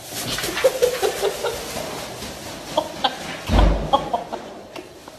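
A person laughing in short, clucking bursts, over the crinkling rustle of a plastic shopping bag dragged by a running cat, with one dull thump about three and a half seconds in.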